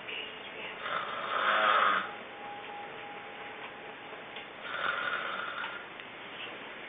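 A sleeper snoring: two rasping snores about four seconds apart, the first and louder one about a second in, with a faint thin whistle just after it.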